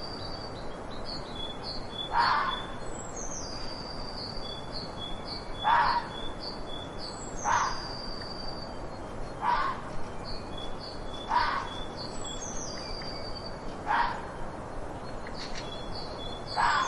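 A fox barking: single short, harsh barks every two seconds or so, seven in all. Behind them a songbird repeats a falling whistled phrase.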